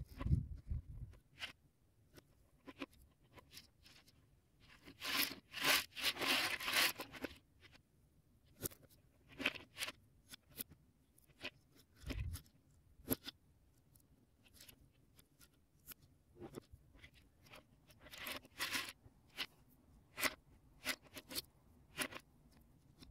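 Plastic Lego Technic beams and pins being handled and pressed together: scattered small clicks and snaps, with two longer stretches of crunchy rattling, one about five seconds in and one near eighteen seconds, and a couple of dull thumps, one at the start and one about twelve seconds in.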